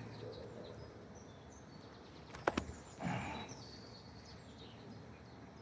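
Quiet outdoor ambience with faint, scattered bird chirps. About two and a half seconds in there is a sharp double click, and just after it a brief low voice sound.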